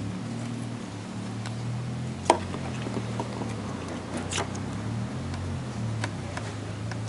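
Small clicks and light scrapes of a black plastic radio knob and torn bits of paper being handled on a wooden workbench, with one sharper click a little over two seconds in, over a steady low background hum.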